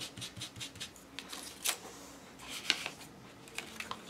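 Foam ink blending tool dabbing distress oxide ink through a plastic stencil onto watercolour paper: soft taps, quick and close together at first, then sparser, with two louder ones around the middle.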